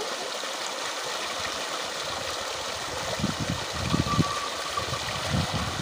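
Water gushing from a pipe outlet into a concrete tank, a steady rushing splash, with some irregular low thumps in the second half.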